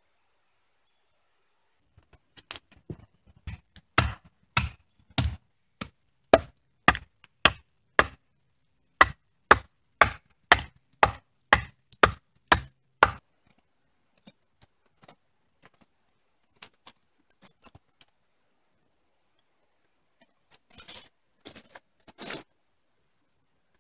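Machete chopping into a slab of wood, about two sharp blows a second for some ten seconds, with a short pause midway. A few light taps follow, and near the end there is a brief scraping rustle.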